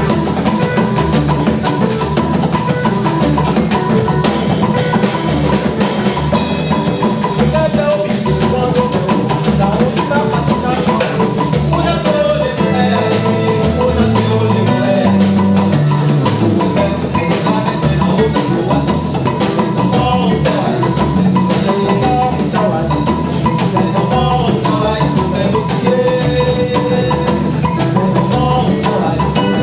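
Music with a steady, driving percussion beat of drums and other struck percussion.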